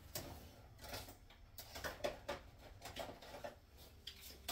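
Faint, scattered clicks and light knocks, about eight over four seconds: someone rummaging among kitchen utensils for a knife.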